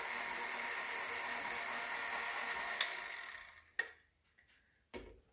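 KitchenAid stand mixer with a whisk attachment running steadily on its low stir speed, beating icing sugar into whipped butter; near the 3-second mark there is a click and the motor winds down and stops. Then a couple of short knocks as a spatula scrapes the steel bowl.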